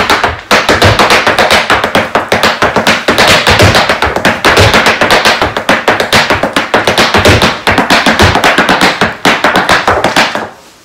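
Irish dance hard shoes striking a floor mat in a fast, continuous run of shuffles and taps. The clicks are dense and even, and they stop about half a second before the end.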